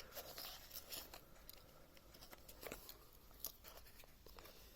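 Near silence: faint, scattered small clicks and rustles of handling noise.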